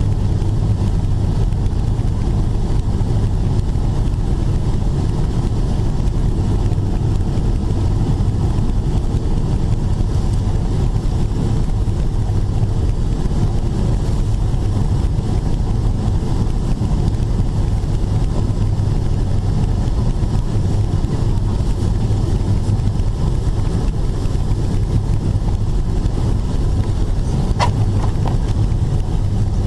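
Steady in-cabin noise of a Boeing 777-300ER on final approach: its GE90 engines and the rush of air past the fuselage, with a steady low hum. A brief click comes near the end.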